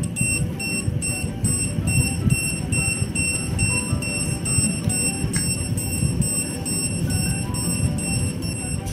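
Handheld electromagnetic radiation detector beeping rapidly and evenly, about three high beeps a second, its alarm for a high radiation reading near a laptop and mobile phone. A steady low rumbling noise runs underneath.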